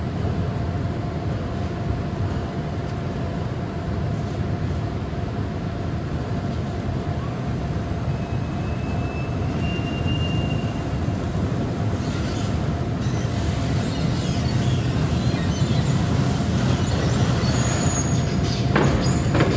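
Produce pouring from a hopper into a hanging big bag as it fills, with machinery running: a steady rumble and a faint whine that grow a little louder, and a few knocks near the end.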